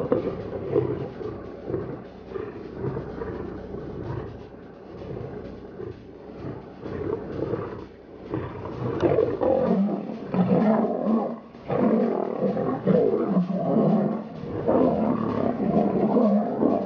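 Several male lions fighting, with rough growls and roars that grow louder and more frequent from about halfway through.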